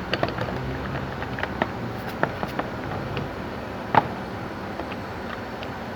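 Scattered light clicks and knocks of a car's plastic door-trim panel being handled and snapped onto its clips, with one louder knock about four seconds in, over a steady low hum.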